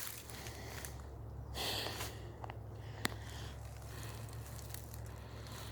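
Quiet woodland ambience with a steady low rumble, a soft rustle about a second and a half in, and a single sharp tick about three seconds in.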